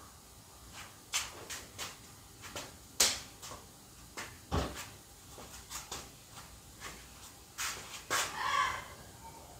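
Handling sounds of clay and boards: a string of light taps and knocks, with a deeper thud about halfway through as a ball of clay is set down on the ware board. A short squeaky sound near the end.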